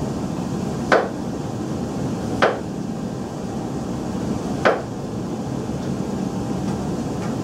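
A chef's knife knocks down onto a cutting board three times while slicing summer squash, each a short sharp knock, over a steady low room hum.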